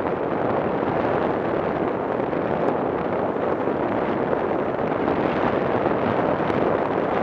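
Steady wind rush on the microphone of a camera riding on a moving motorcycle, mixed with road noise from the wet surface.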